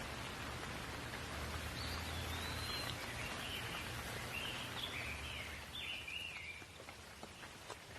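Steady hiss of falling rain, with a bird singing a run of short chirping phrases through the middle. The rain's hiss eases slightly near the end.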